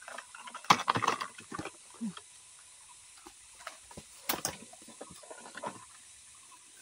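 Scattered handling noises: knocks and rustles, the densest about a second in and one sharp knock near the middle, from a clear plastic jar being handled and someone moving through leafy undergrowth.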